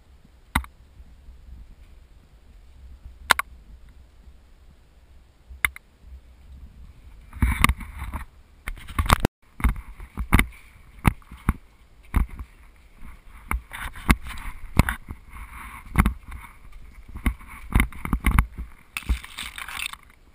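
Handling noise and footsteps on a moving camera: a low rumble with a few isolated sharp clicks, then from about seven seconds in an uneven run of knocks and thumps, roughly one or two a second, with scraping noise between them.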